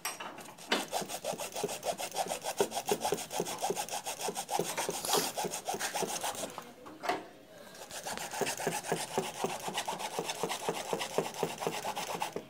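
A hand-held saw blade cutting along the lid seam of a small sealed maintenance-free battery's plastic case, in quick, even back-and-forth strokes. The strokes break off briefly about halfway through, then carry on. This is the sealed case being sawn open to get inside the battery.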